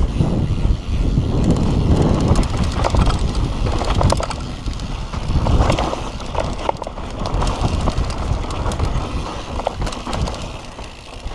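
Mountain bike descending a dirt and rock trail: rushing wind on the camera microphone and tyre rumble, with irregular clicks and knocks as the bike rattles over rock.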